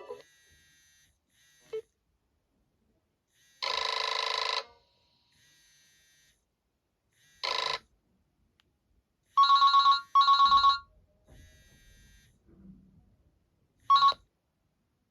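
Nokia E65 mobile phone playing short electronic ringtones and alert tones through its loudspeaker, each separated by a pause. The loudest is an old-telephone-style double ring, two rapidly pulsing bursts about nine and a half seconds in. Shorter buzzy tones come about four seconds in, near eight seconds and near the end.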